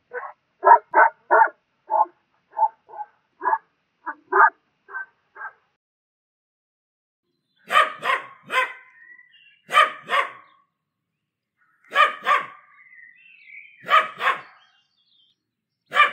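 German Shepherd barking in a quick run of about a dozen short barks that grow fainter. After a pause, a Pomeranian barks louder in pairs and threes about every two seconds, with brief whines between some of them.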